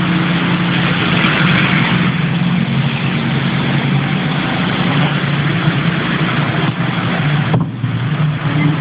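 Steady engine drone: a low, even hum under a broad rushing noise, echoing in a road tunnel. The rushing briefly dips near the end.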